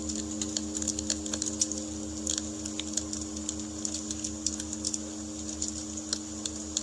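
Campfire crackling with irregular small pops, over Peter Hess singing bowls ringing out with steady held tones that waver in slow, regular beats.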